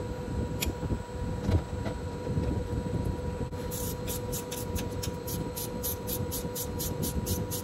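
A ratchet wrench clicks in a fast, even run of about five clicks a second as it is cranked to tighten the fasteners holding a new B&C starter to a Continental C85 engine. It starts about halfway through. Before that come a couple of light metal knocks as the starter is set into place, over a steady low hum.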